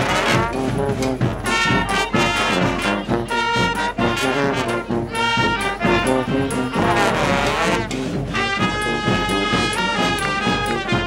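Brass marching band playing a loud tune. Several brass instruments sound together, with long held chords in the second half.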